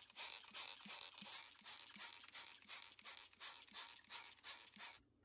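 Hand trigger spray bottle spritzing water onto a golf club head in quick repeated squirts, about three a second, each a short hiss with a light trigger click, stopping suddenly near the end.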